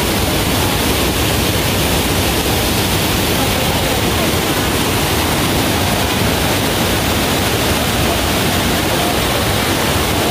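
Fast mountain river rushing over rocks and a small cascade: a steady, loud rush of water.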